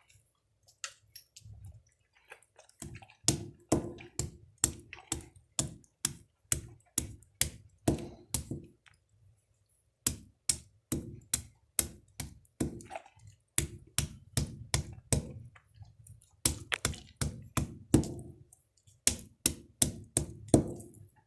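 Steady chopping of hard dehydrated carrot: sharp knocks about three a second, in two runs with a short pause about nine seconds in.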